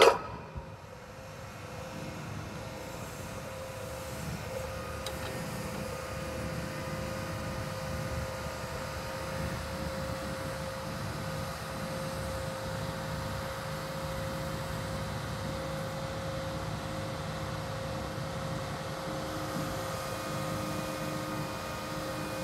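A steel plate released from the lifting magnet hits the ground with a loud clank at the very start. After it, the Fuchs MHL340D material handler runs steadily, its engine and hydraulics humming under a constant whine, as the magnet is swung.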